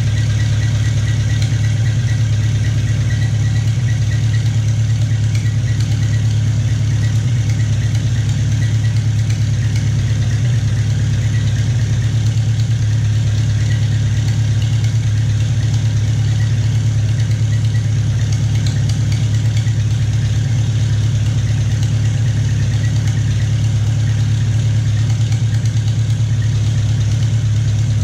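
Farmall Cub's four-cylinder flathead engine idling steadily on its first test run after a rebuild with new piston rings and head gasket.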